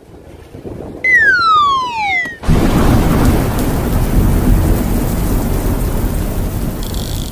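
Intro sound effects: a falling whistle about a second in, then a thunderclap that rumbles on for about five seconds, timed to a lightning graphic.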